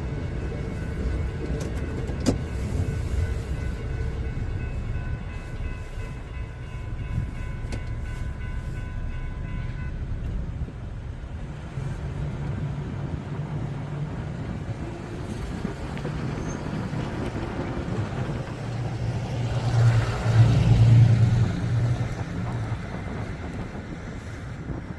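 A train passing with a continuous rumble. Several steady high tones stop about ten seconds in, and a louder low drone swells about twenty seconds in before fading.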